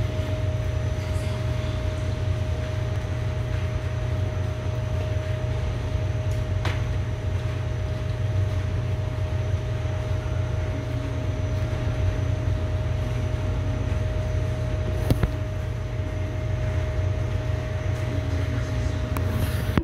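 A vehicle running steadily: a low rumble with a steady mid-pitched tone over it and a couple of faint clicks, cutting off abruptly at the end.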